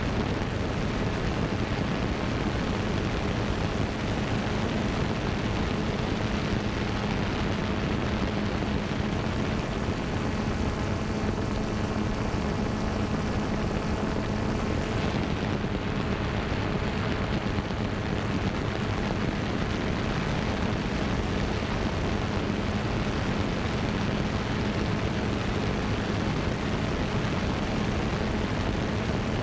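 Xiro Xplorer G quadcopter's electric motors and propellers running steadily in flight: a constant hum over a rush of air noise, heard from the GoPro carried on the drone.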